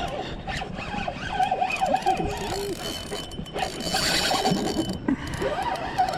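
Fishing reel's drag ratcheting and squealing as a hooked snook pulls line, its pitch wavering up and down with the fish's runs.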